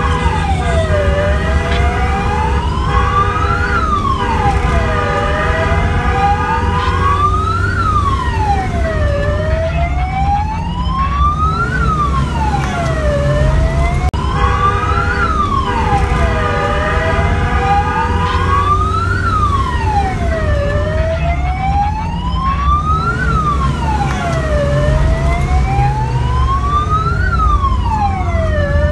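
Wailing siren of a fire-response convoy, sweeping slowly up and down about every four seconds, over engine rumble heard from inside a moving vehicle's cab. A second, steady horn-like tone sounds for stretches near the start and about halfway through.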